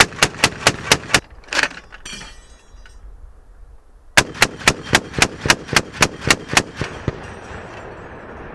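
M2 .50 caliber machine gun firing two bursts, about six shots and then about ten, at roughly four shots a second. A short metallic ringing comes between the bursts.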